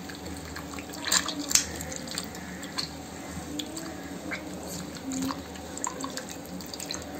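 Wet squelching and small splashes and drips as tomatoes are squeezed and mashed by hand into tamarind water in a steel bowl.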